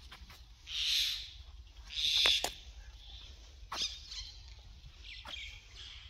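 Citrus leaves and twigs rustling and brushing as the camera pushes through the branches, in short swells with twiggy clicks. The two loudest rustles come about a second in and again around two seconds in.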